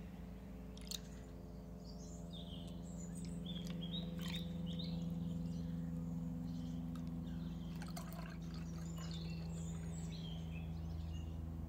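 Strong bottle-conditioned homebrew beer being poured steadily from a glass bottle into a glass chalice, trickling and fizzing as the head builds. Birds chirp in the background.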